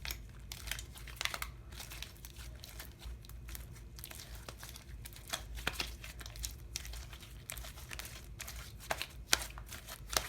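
Hands kneading sticky slime mixed with clay, giving irregular crackles and sharp little clicks as the tacky slime pulls apart between the fingers.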